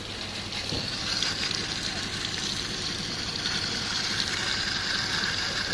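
Water hissing through a hose pushed into a diesel particulate filter to flush out the soot, a steady rushing hiss that grows stronger about a second in.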